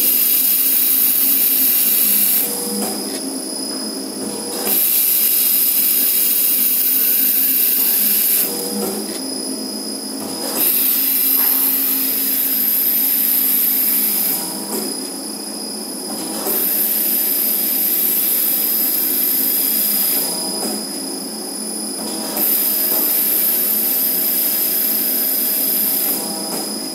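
Automatic masking tape log cutting machine, its spinning circular blade slicing through the tape log in repeated cuts. Each cut is a loud hissing rasp of about four seconds, followed by a quieter pause of about two seconds, five times over. A steady high whine runs underneath.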